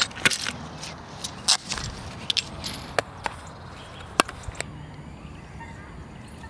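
Fly-fishing tackle being handled, with sharp clicks and small knocks from the rod sections and a plastic fly box. The clicks come irregularly over the first four and a half seconds and then stop, leaving a quieter steady background.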